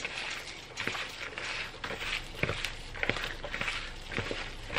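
Gloved hands mixing seasoned raw chicken pieces and minced garlic in a plastic bowl: irregular wet squishing, with a few sharp clicks at uneven times.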